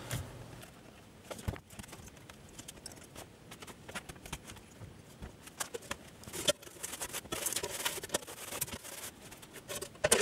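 Scattered light clicks, taps and knocks of metal case parts and a screwdriver being handled as a bench power supply's case, handle and back panel are fitted back on, with a busier run of clatter a little past the middle.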